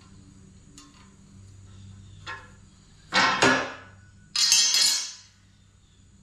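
Steel plate being handled: a few light clicks, then two loud metallic clanks that ring on briefly, about a second apart.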